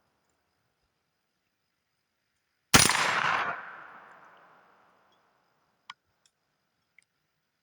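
A single shot from a Bear Creek Arsenal BC9 9mm carbine, with its echo trailing off over about two seconds. A few faint clicks follow near the end.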